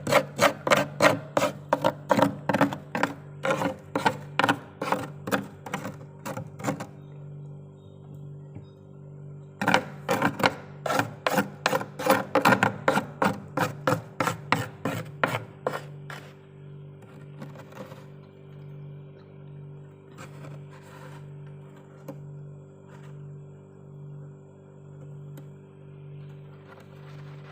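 Metal spoon scraping frost in quick strokes, about three a second, in two runs with a short pause between. After that only a steady low pulsing hum is left.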